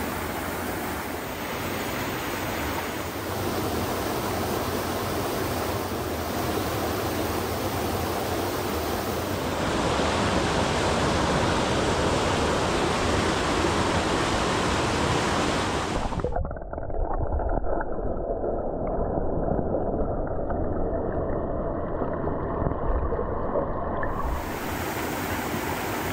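Abol Falls, a waterfall, rushing steadily. The sound changes abruptly about ten seconds in, turns duller and loses its hiss about sixteen seconds in, and comes back brighter near the end.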